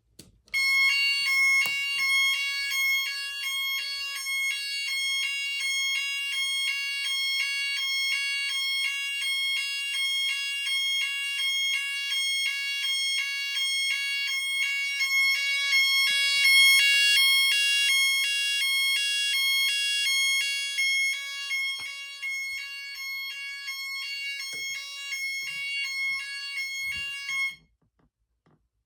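12-volt fire alarm siren sounding a high-pitched, rapidly pulsing tone, the panel in alarm; it cuts off suddenly near the end.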